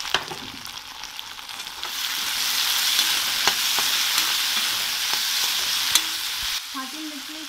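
Vegetables in ketchup and soy sauce sizzling in a hot kadhai while being stirred and scraped with a perforated spatula, with a few sharp taps of the spatula on the pan. The sizzle swells about two seconds in and drops off near the end.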